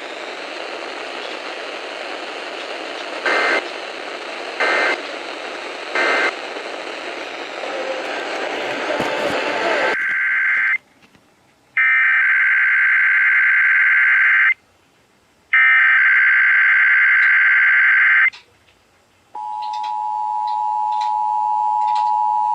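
Emergency Alert System tones received over the radio. First there is a steady hiss of static with three short data bursts, the end-of-message code that closes the previous test. About ten seconds in, three longer bursts of warbling SAME header data follow, and near the end the steady two-tone attention signal begins.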